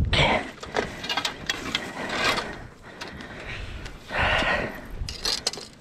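Fishing reel being cranked while fighting a fish, giving a run of clicking and rubbing in uneven bursts.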